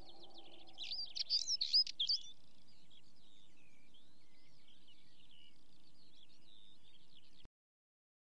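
Songbirds chirping and singing, busiest and loudest about a second or two in, with fainter calls after; the sound stops abruptly near the end.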